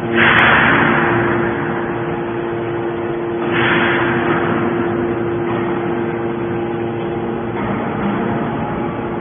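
Hydraulic pop-can baler running: a steady motor and pump hum, with two bursts of hissing noise, one just after the start and one about three and a half seconds in, each fading over about a second.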